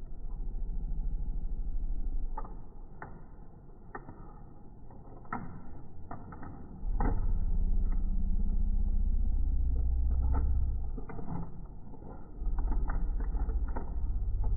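Door knob hardware being fitted: a series of sharp metallic clicks and rattles as the knob and latch parts are pushed together. A deep rumble of handling noise comes and goes in long stretches.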